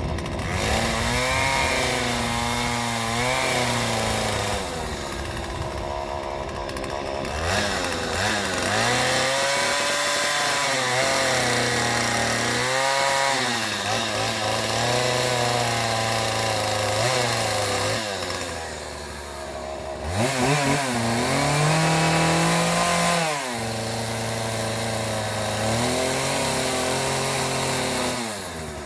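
Chainsaw running, its engine speed rising and falling over and over, with a short quieter lull about two-thirds of the way through.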